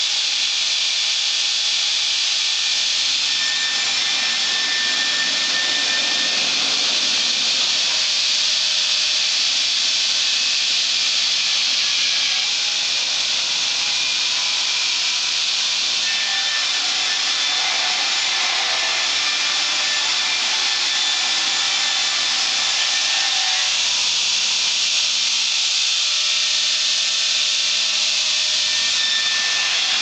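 Electric-motor-driven circular saw blade of a log sawmill cutting lengthwise through a log: a steady, high-pitched hiss of the blade in the wood that never lets up.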